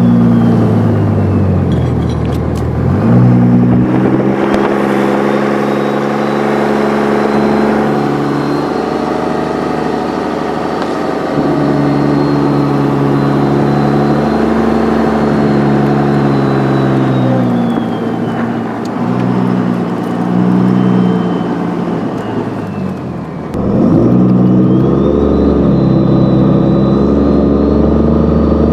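Dodge Cummins turbo-diesel pickup accelerating under load, the engine pitch climbing, dropping sharply twice as if shifting gears, and climbing again. A high turbo whistle spools up over it, holds, winds down, and spools up again after the second drop.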